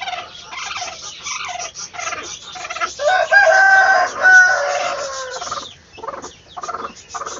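A broody hen sitting on eggs gives a drawn-out call about three seconds in, then a shorter one, protesting at being disturbed as a hand reaches under her and takes out an egg. Cloth rustles and scrapes throughout.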